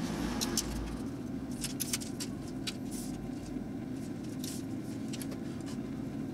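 Tepro Toronto overhead gas steak grill's burner running turned up high as it heats, a steady rushing hiss, with scattered light ticks every second or so.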